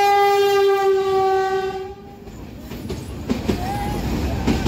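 Train horn sounding one long steady blast that fades out about two seconds in, followed by the rumble and clatter of the train running.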